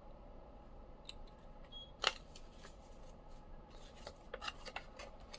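Faint handling sounds of a small enamel pin and its card packaging being turned in the hands: scattered light clicks and rustling, with one sharper click about two seconds in.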